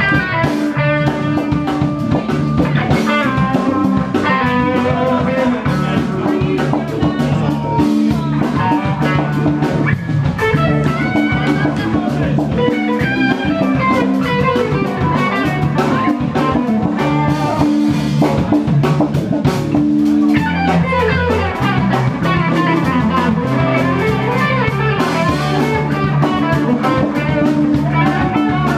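Live rock band playing an instrumental jam without vocals: electric guitar leads over bass and drum kit.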